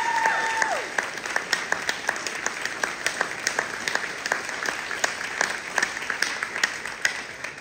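Audience applauding: many people clapping, thinning and fading out near the end. A high held call from the crowd glides down and stops within the first second.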